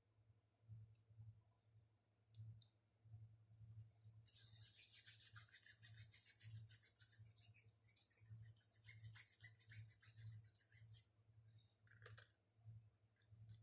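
Faint rapid rubbing or scraping strokes, a hand working something over a part. The strokes start about four seconds in and stop about seven seconds later, with a few scattered clicks around them over a low pulsing hum.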